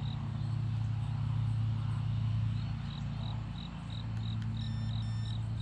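Insects chirping in a steady rhythm, about three short high chirps a second, over a constant low hum, with a couple of short beeps near the end.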